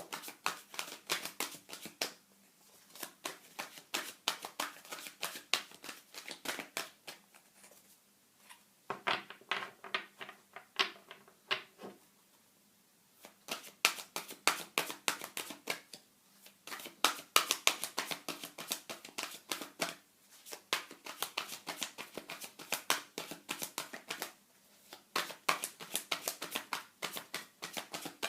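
A deck of tarot cards being shuffled by hand in a small room: quick runs of papery card flicks, broken several times by brief pauses.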